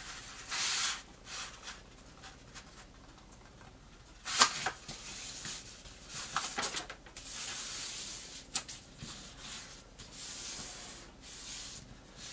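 Sheet of origami paper being folded in half and creased by hand: a series of short rustling, rubbing strokes as the hands slide over the paper, with one sharp snap about four seconds in.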